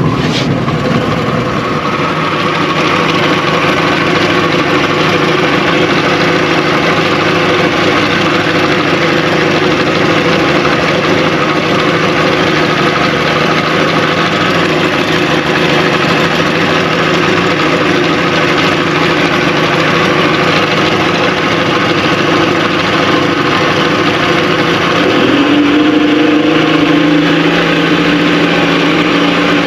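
1957 Kiekhaefer Mercury Mark 75 straight-six two-stroke outboard running steadily under way. About 25 seconds in, its note steps up a little higher and louder as the revs rise.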